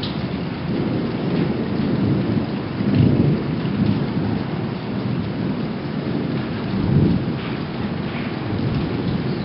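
Thunder from a supercell thunderstorm rumbling in long rolls, swelling loudest about three seconds in and again about seven seconds in, over a steady hiss of rain.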